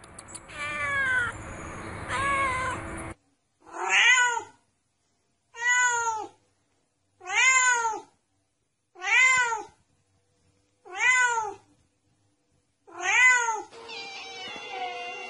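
Domestic cat meowing. Two meows come over background noise, then after a sudden cut six alike meows follow about every two seconds with silence between, each rising and then falling in pitch.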